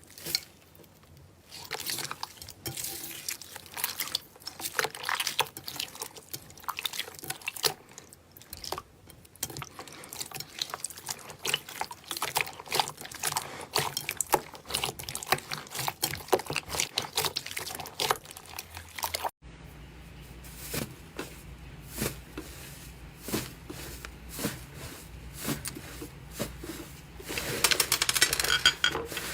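Slime being squished and worked by hand, a run of wet, irregular clicks and crackles. About 19 s in the sound cuts to another clip with a low steady hum underneath, and the crackling thickens near the end.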